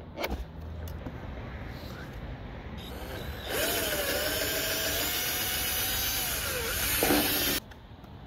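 Black & Decker cordless drill running as it drills into the plastic bumper, for about four seconds from three and a half seconds in; its whine sags in pitch just before it stops, with a short extra burst near the end. Before it, a few clicks and handling rustle.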